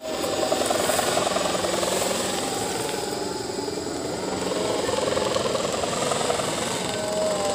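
Hummer on a flying kite droning in the wind: a steady buzzing drone with a fast flutter, swelling and easing slightly as the wind pushes the kite.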